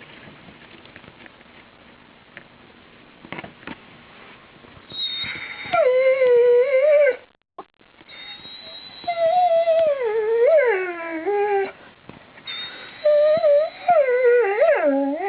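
Dog whining to be let outside: three long, wavering whines that start high and slide down in pitch, after a few seconds of near quiet with faint clicks.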